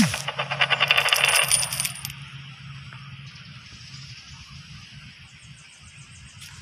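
A loud, bright, rapid rattle for about the first two seconds, then faint sounds of a stray dog eating noodles out of a plastic container.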